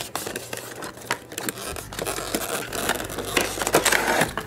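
Cardboard box and clear plastic packaging being opened and handled: crinkling, rustling and scraping with scattered sharp clicks.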